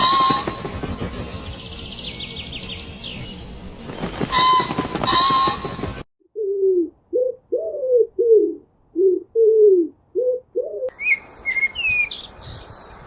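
Several different birds calling one after another. First comes a loud, harsh call twice, with a faint trill between. Then a run of about nine short, low notes, each falling in pitch. High, quick chirps and whistles follow near the end.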